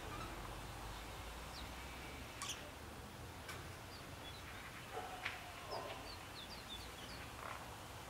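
Songbirds calling: a few short, high chirps, with a quick run of about six just past the middle, and occasional sharp clicks over a faint low rumble.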